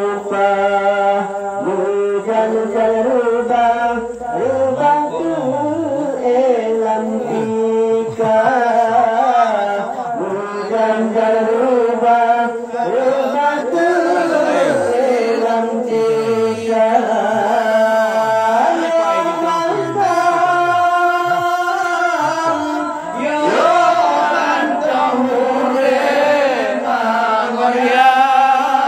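A man singing an Acehnese qasidah into a microphone in long, ornamented phrases, with a steady low tone held underneath.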